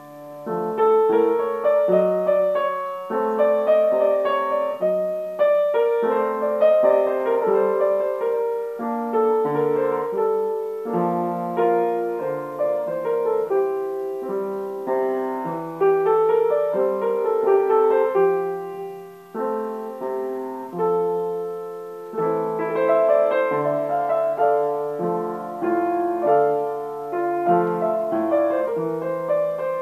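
Upright piano being played, several notes at a time in chords and melody, with a short pause about two-thirds of the way through.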